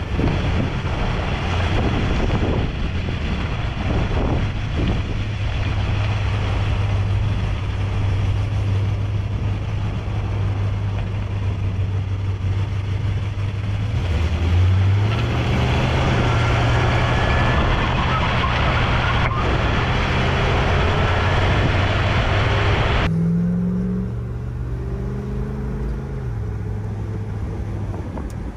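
1969 Oldsmobile 442's 400 cubic-inch V8 exhaust heard close up while the car drives, a steady low rumble that climbs in pitch about halfway as the car picks up speed. Near the end the sound is from inside the cabin, where the engine revs up and drops back at a gear change.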